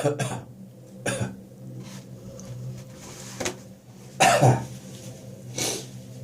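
A person's morning cough: a run of short, separate coughs and throat-clearing, the loudest a little after four seconds in, over a steady low hum.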